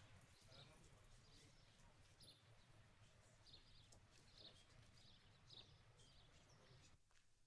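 Faint outdoor ambience: small birds chirping, short chirps about once a second, over a low steady hum.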